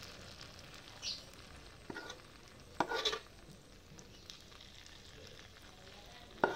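Jowar and urad dal batter being ladled into hot oil in the wells of a cast-iron paniyaram pan, sizzling steadily. A few sharp knocks of the ladle against the pan break through, the loudest about three seconds in.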